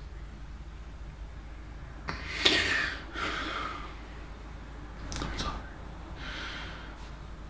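A man's breathing: a loud, sharp breath about two seconds in, then a few shorter breaths and a quick exhale a little after five seconds, over a low steady hum.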